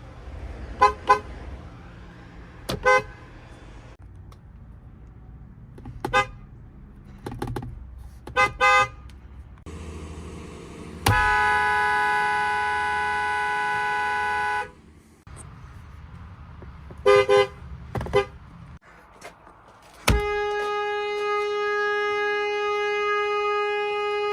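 Car horns sounding in a string of short beeps and double toots. About 11 seconds in comes one long held blast of three and a half seconds, then more short toots, and about 20 seconds in another long steady blast begins, with traffic noise underneath.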